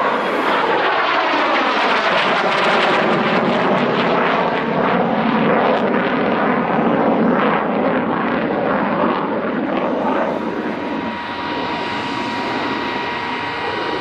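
Saab 37 Viggen fighter's Volvo RM8 turbofan jet engine, loud and rushing with a sweeping, phasing quality as the jet banks and turns overhead in a display. The noise eases slightly about ten seconds in.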